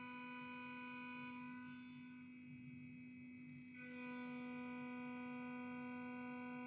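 A 1.8 kW CNC spindle at 15,000 rpm drives a 20 mm two-flute face mill in a light facing pass over aluminium, giving a steady high-pitched whine with many even overtones. The upper overtones fade about two seconds in and come back strongly about four seconds in.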